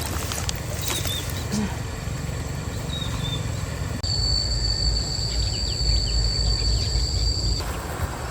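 Outdoor stream-side ambience: a steady low rushing noise with a few short bird chirps. A steady high-pitched tone comes in suddenly about four seconds in and cuts off abruptly near the end.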